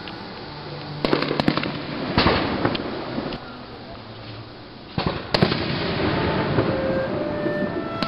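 Aerial fireworks shells bursting: a run of sharp bangs from about a second in, a quieter lull, then another pair of bangs about five seconds in, with crackling between the reports.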